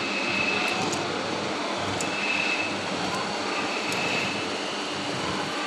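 Metalworking machine running, most likely a CNC lathe cutting the gear part: a steady rushing noise with a high whine that comes and goes about every two seconds, and a few faint ticks.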